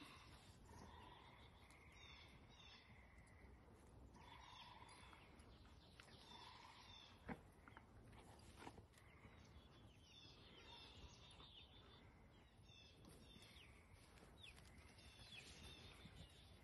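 Faint, repeated bird chirps with a few softer low calls, and one short click about seven seconds in.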